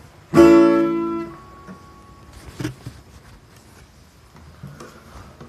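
Acoustic guitar with a capo: one strummed chord about half a second in, ringing for about a second before it is damped. A couple of faint knocks follow.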